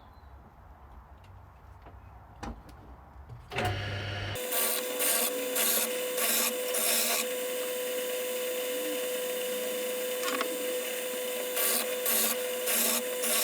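A power woodworking machine starts about three and a half seconds in and runs with a steady hum and hiss. Several short louder surges come in two clusters, as the mandolin neck blank is fed through for a light finishing cut.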